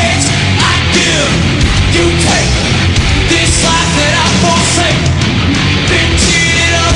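Heavy metal band playing live at full volume: distorted electric guitars, bass and drums.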